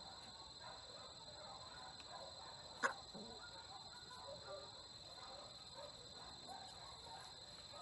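Domestic chickens clucking softly over a steady, high insect drone. A single sharp click a little under three seconds in is the loudest sound.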